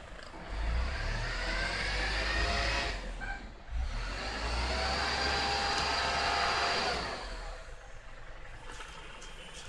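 Engine noise from a passing motor vehicle, heard twice, each time for about three seconds and rising in pitch.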